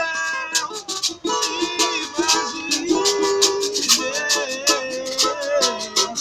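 Music: strummed plucked strings and a melody line over shaken percussion that rattles out a quick, steady beat.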